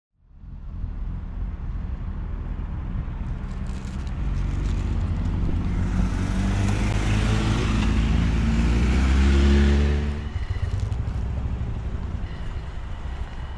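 Toyota Land Cruiser Prado driving, its engine note climbing steadily for several seconds as the car accelerates, then dropping away about ten seconds in as it eases off.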